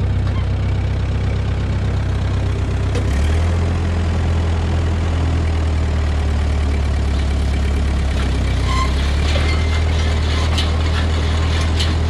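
Tractor engine running steadily; about three seconds in its note drops and settles under load as the PTO drive to a Massey Ferguson small square baler is engaged. From about eight seconds in, light clicking and rattling from the baler's running mechanism joins.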